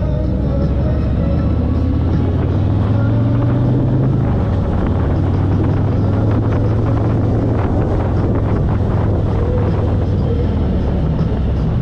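Motorcycle engine running steadily while riding, with wind buffeting the microphone; the engine note drops slightly about four seconds in.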